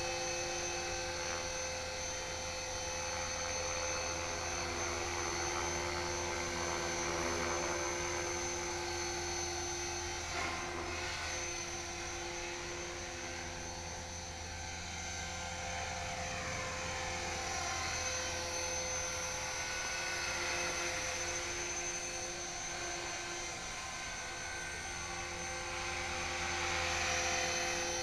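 HK-450GT electric radio-controlled helicopter in flight: a steady whine of its motor and rotor, swelling and fading gently in loudness as it moves about.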